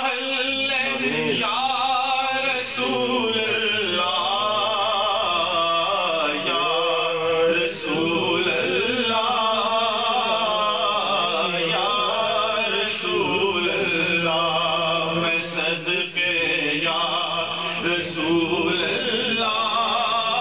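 A man's voice singing a devotional naat into a microphone, in long drawn-out notes that waver with heavy vibrato and ornamentation.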